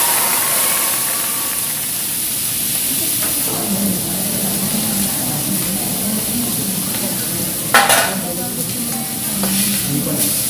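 Steaks sizzling and frying on a hot teppanyaki griddle, a steady hiss. A sharp metal clack cuts through a little under eight seconds in.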